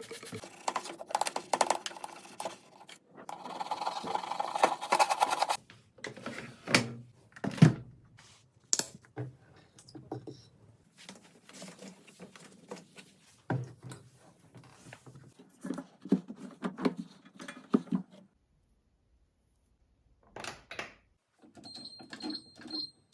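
Irregular knocks and handling clatter from cleaning a washing machine by hand, with a stretch of scrubbing about three to five seconds in. A few short high beeps sound near the end.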